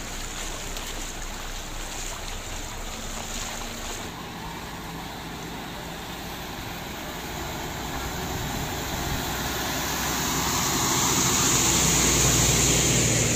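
Heavy truck driving through floodwater on a road, its engine getting steadily louder as it approaches and passes close by, its tyres sending up a rushing spray of water that is loudest near the end. Floodwater running over the road underneath.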